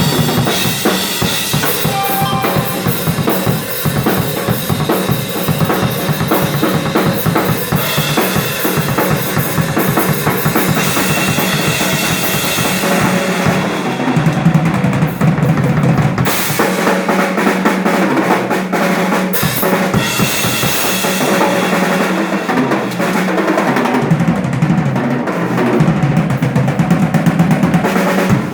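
A rock drum kit played solo at full volume: fast, busy patterns on kick drum, snare and toms, with rolls and crashing cymbals. The cymbals drop back for a few seconds twice, around halfway and near the end, while the drums keep going.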